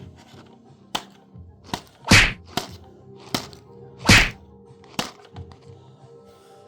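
A series of sharp knocks and whacks, with two louder, longer hits about two and four seconds in, over faint steady tones.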